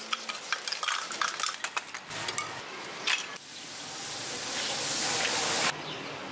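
Lumps of charcoal clinking and knocking as they are dropped into a brick forge pit. Then a hiss swells for about two seconds and stops abruptly.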